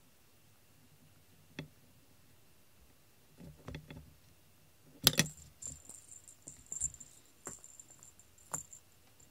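Small metal bell on a feather cat-teaser wand jingling as the toy is flicked and dragged over carpet, starting with a sharp knock about five seconds in. A few soft taps come before it.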